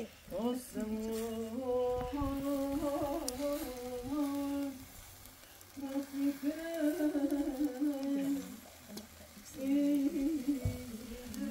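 A person humming a slow tune: three phrases of long held notes with short pauses between them.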